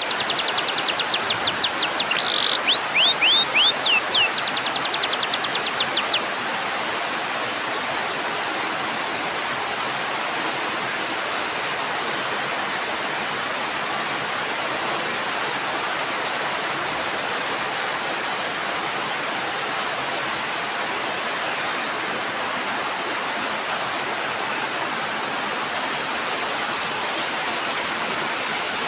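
Steady rain falling. For the first six seconds a louder run of rapid high-pitched chirps sits on top of it, a few of them falling in pitch, and it breaks off abruptly.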